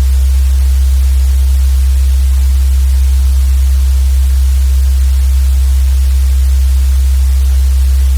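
Loud, steady low hum with an even hiss of static over it, unchanging throughout.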